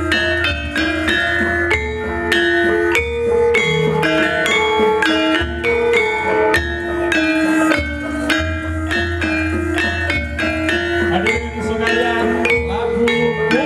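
Javanese gamelan ensemble playing: bronze metallophones struck with mallets in a quick, even run of ringing notes over a low sustained tone.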